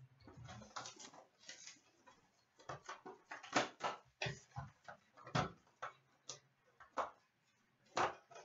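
Plastic shrink-wrap crinkling and tearing as a sealed 2015/16 Anthology hockey card box is unwrapped and its cardboard lid opened: irregular crackles and taps, loudest about three and a half, five and a half and eight seconds in.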